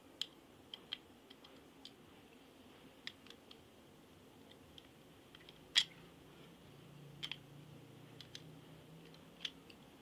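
Scattered light clicks and taps of plastic and wire as a two-gang light switch plate is handled and wired, the sharpest knock a little past halfway.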